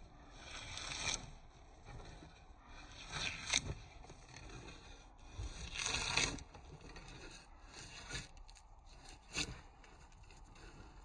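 Scraping on wood in four separate, irregular strokes, each under about a second long, with quiet between them.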